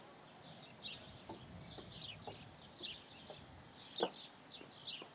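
Faint birdsong: short falling chirps repeating every half second or so, with a few short low clucks mixed in.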